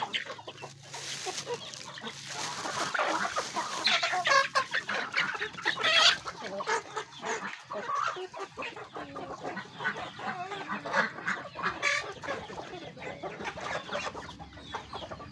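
A flock of chickens clucking as they feed on scattered grain, many short calls overlapping, loudest about four to six seconds in.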